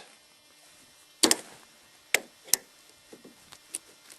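Sharp metallic clicks and knocks from a 1997 Volvo S90's front strut top mount as the strut is moved by hand. There are three distinct clicks, one just after a second in and two close together about a second later, followed by a few faint ticks. The play they come from, which the owner says is 'a little bit', points to a possibly worn strut mount.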